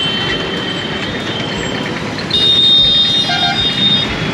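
City road traffic noise, with a vehicle horn sounding one high, steady note for about a second and a half past the middle.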